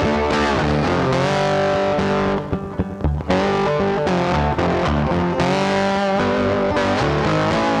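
Instrumental background music led by guitar over a bass line, with a short drop in level about two and a half seconds in.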